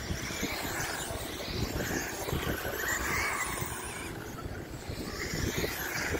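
Several radio-controlled model cars lapping, their motors whining and rising and falling in pitch as they speed up and slow through the turns, over a low rumble of wind on the microphone.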